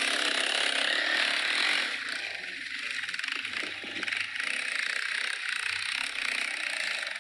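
Runner Hawk 200 dirt bike's 200cc four-stroke air-cooled engine running while being ridden, under a steady rushing hiss that is louder for the first two seconds and then eases.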